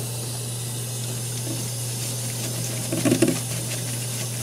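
Tap water running into a stainless steel sink as a steady wash of noise, with a brief louder sound about three seconds in.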